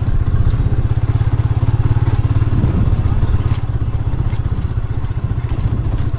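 Motorcycle engine running at a steady, even pace while riding a bumpy dirt track, with scattered small clicks and rattles from the ride.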